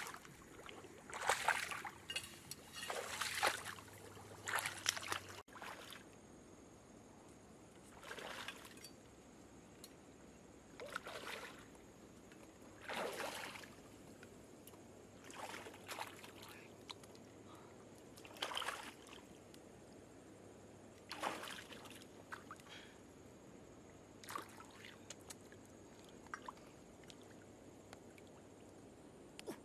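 Shallow water sloshing around a person's legs as she wades slowly through flooded brush, a swish of water every two to three seconds.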